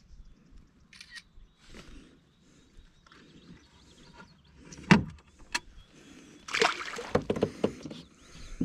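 Knocks and scraping handling sounds aboard a fishing kayak: one sharp knock about five seconds in, then a burst of scraping and clatter near the end.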